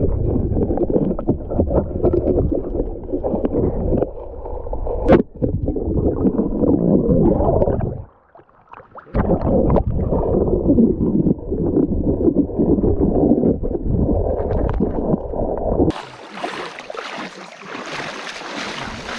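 Muffled rushing and gurgling of river water heard close to or under the surface, with a short break about eight seconds in. Near the end it gives way to a quieter, thinner hiss of shallow running water.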